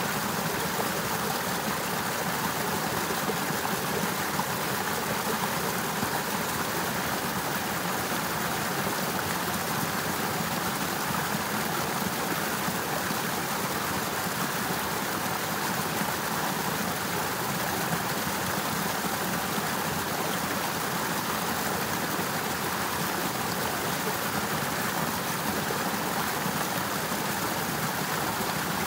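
Partly frozen river running under and past its ice: a steady, even rush of flowing water that does not change.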